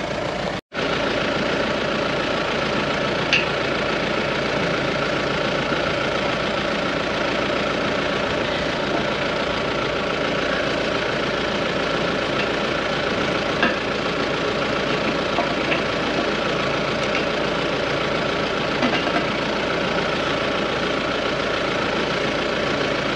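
Tractor engine idling steadily, with a few faint metallic clinks as bolts are handled and fitted to the packer frame.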